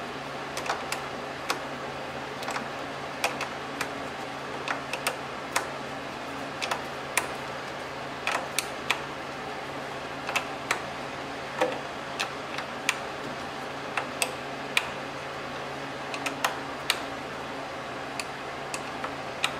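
Irregular metal clicks and taps, roughly one or two a second, from a wrench working the 10 mm nut on a car battery's negative terminal clamp as it is tightened down.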